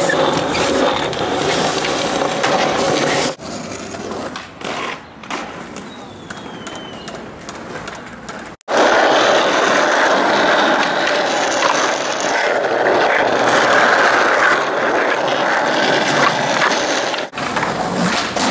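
Skateboard wheels rolling over concrete and pavement, with the board knocking and scraping on ledges, across several clips cut together so the sound changes abruptly about three seconds in, near nine seconds and near the end.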